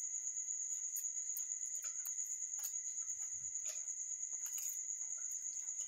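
Crickets trilling steadily at a high pitch, with faint light scrapes and taps of a steel spoon spreading tomato chutney over bread in an iron pan.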